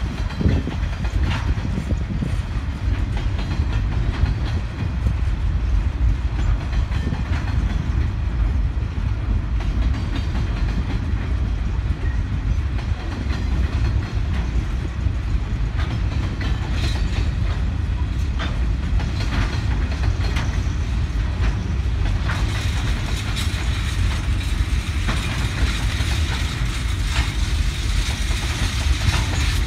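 Grain hopper wagons of a freight train rolling past at low speed: a steady rumble of steel wheels on the rails, with irregular clicks and clacks from the wheels over the track.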